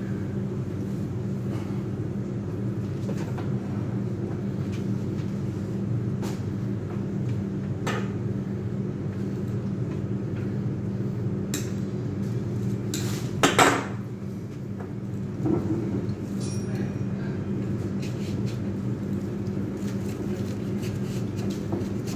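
Flower stems and tools being handled at a glass vase on a stone counter: scattered light clicks and knocks over a steady low hum, with a louder clatter a little past halfway.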